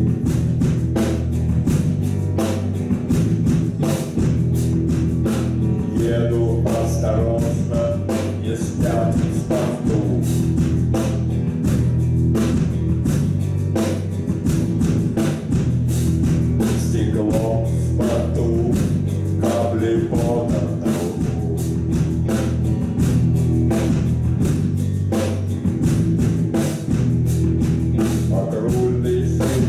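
A live rock band playing an instrumental passage: electric guitar and keyboard over a steady drum beat and bass.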